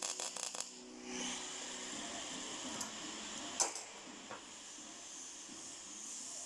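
MIG welding arc crackling for the first half-second or so of a flat-position weld, then stopping as the bead ends. Afterwards a steady hiss, with a sharp click about three and a half seconds in.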